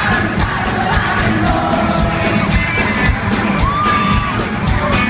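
Live band music with a steady beat, heard from within a concert crowd that is cheering and singing along.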